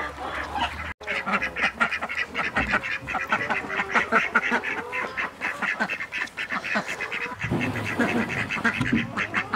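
Ducks quacking: a dense run of many short, overlapping calls.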